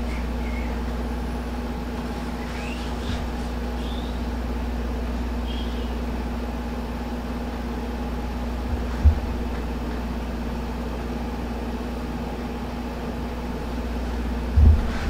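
Steady low hum of a running motor or fan, with two dull thumps, one about nine seconds in and one near the end.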